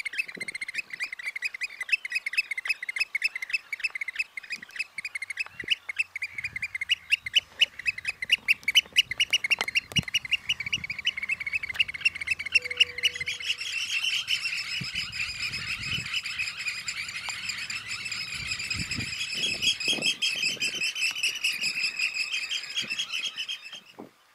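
Eurasian oystercatchers piping: a fast run of shrill repeated notes. The notes become denser and higher about halfway through, and stop suddenly near the end.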